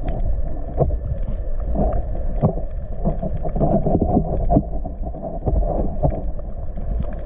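Muffled water noise with a low rumble, crossed by many small knocks and clicks, as heard by a camera held in the water beside the boat's hull.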